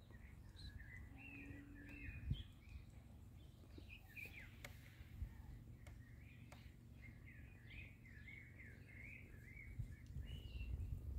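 Faint chirping of small birds, many short chirps one after another, over a low steady background rumble.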